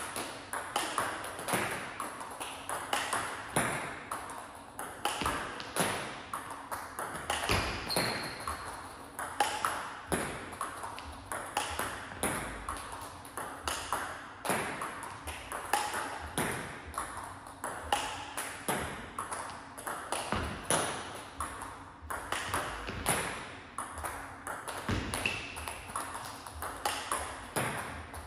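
Table tennis ball being hit back and forth in a training drill: a steady, quick run of sharp clicks, about two a second, as the ball strikes bats and bounces on the table.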